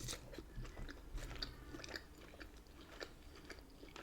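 A person chewing food close to the microphone: a faint, irregular run of small wet mouth clicks.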